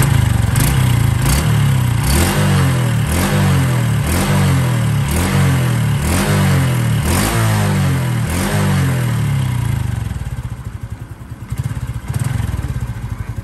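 Honda Wave 110i's small single-cylinder four-stroke engine idling, with a regular pulsing rise and fall roughly once a second; it eases off about ten seconds in and picks up again near the end. The engine is being checked for a loud tapping noise that the mechanic is trying to cure.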